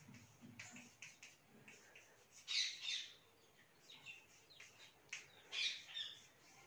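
Chalk writing on a blackboard: a run of short taps and scratching strokes, the loudest two about two and a half and five and a half seconds in.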